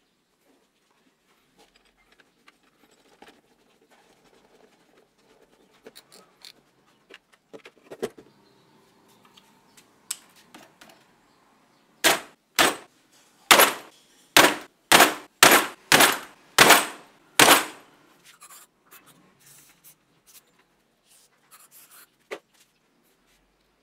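About nine sharp hammer blows, roughly two a second, on a large hex key clamped in the rusty chuck of a DeWalt XRP 18V drill, knocking the threaded chuck loose from the spindle. Before the blows, quiet clicks of the key and drill being handled.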